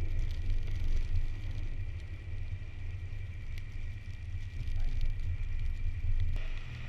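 Car driving: steady low road and engine rumble.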